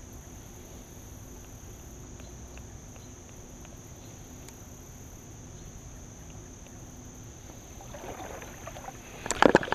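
Low steady outdoor background with a faint, even insect hum. About eight seconds in, a spinning reel is worked and handling noise builds, ending in a brief cluster of loud sharp knocks and rustles near the end.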